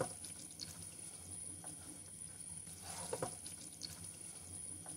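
Goat-meat curry masala sizzling faintly in a pot as a silicone spatula stirs in browned-onion paste, with a few soft scrapes against the pot. This is the bhuna stage, the meat and spices frying in oil before water is added.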